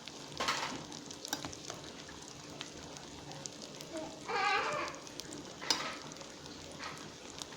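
Soy meat with sardine and seasonings sizzling in the pot while it is stirred, the spoon scraping and knocking against the pot a few times. A short, pitched, bleat-like animal call sounds about four seconds in.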